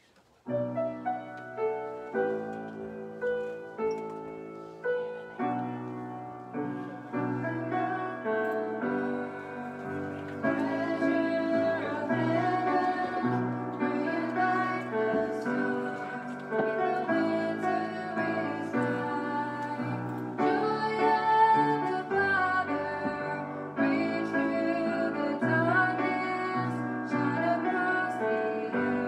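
Grand piano starts an introduction of chords about half a second in; a women's vocal ensemble joins partway through and sings with the piano accompaniment.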